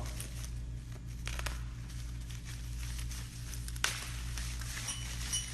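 Packing material rustling and crinkling while small metal lathe parts are handled, with a few sharp clicks and a brief light metallic clink near the end, over a steady low hum.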